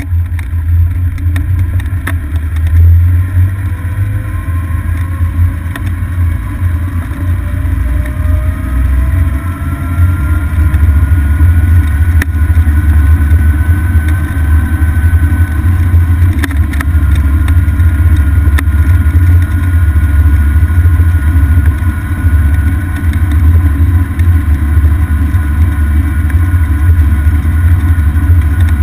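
Golf cart driving along a paved road, heard from on board: a steady low rumble with a whine that rises in pitch over the first dozen seconds, then holds steady as the cart keeps its speed.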